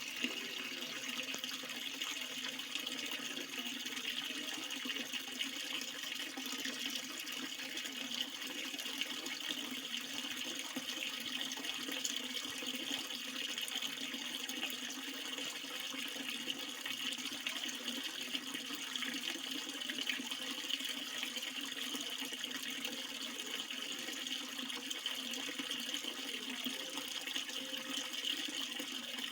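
Water running in a steady, unbroken flow.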